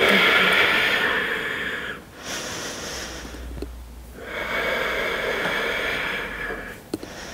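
A woman breathing deeply and audibly while holding a yoga pose: two long breaths of about two seconds each, with a quieter breath between them.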